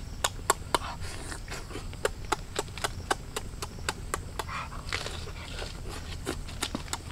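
A person eating with the mouth open, chewing and smacking the lips in a steady string of sharp clicks, about three or four a second.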